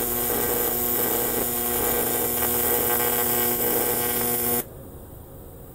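AC TIG welding arc on an aluminium plate from a Sanjoe TIG200P AC/DC welder: a loud, steady tone over a hiss. It cuts off suddenly about four and a half seconds in as the arc is broken.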